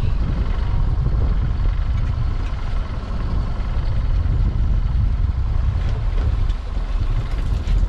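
Steady low rumble aboard a small fishing boat at sea, from wind on the microphone and the boat's idling engine.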